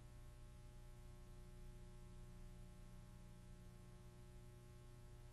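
Near silence: a faint, steady electrical hum with low hiss.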